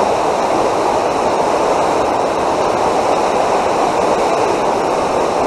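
Steady, unbroken rush of flowing water, even in level throughout.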